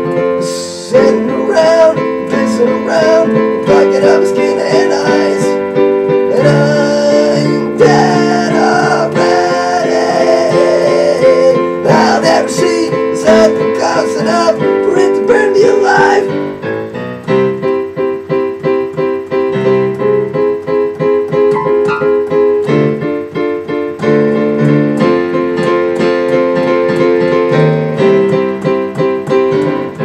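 A man sings with his voice altered by illness (bronchitis), accompanying himself on a digital piano. The singing stops about halfway through, and the piano carries on alone with evenly repeated chords.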